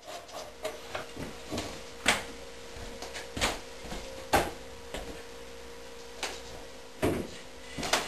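Irregular sharp wooden knocks and clatter, about a dozen, from a pine box frame and a cordless drill being handled and set down on a wooden table. The loudest knocks fall about two, three and a half, four and a half and seven seconds in.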